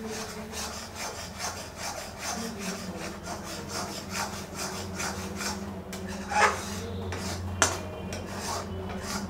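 Flat metal spatula scraping and stirring thick, grainy khoya around a metal kadhai in repeated rasping strokes, two or three a second, with a couple of sharper scrapes about two-thirds of the way through. The stirring is kept up without pause so the reducing milk does not stick to the pan.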